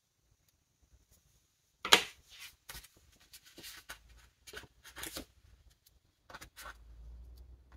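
One sharp clack about two seconds in as a small metal sticker tool is set down on the countertop, followed by soft paper rustling and light ticks as a sticker sheet is handled.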